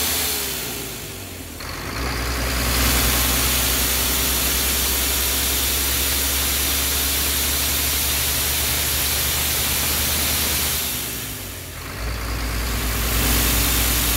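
Renault turbo diesel bus engine running with a loud rushing hiss of boost air escaping from a split turbo hose, the sign of why the turbo cannot build pressure and the engine lacks power. About a second in and again near the end the engine eases off and the hiss drops, then both come back.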